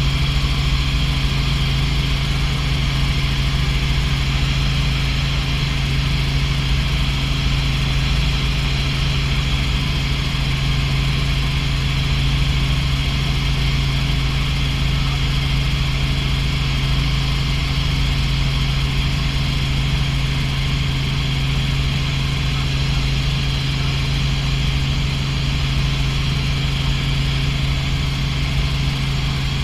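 Robinson R44 helicopter in cruise, heard from inside the cabin: the steady drone of its piston engine and rotor, with a strong constant low hum.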